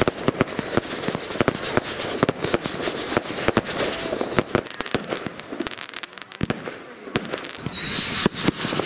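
Fireworks display going off: a rapid run of sharp bangs and crackles, easing briefly about six seconds in before picking up again.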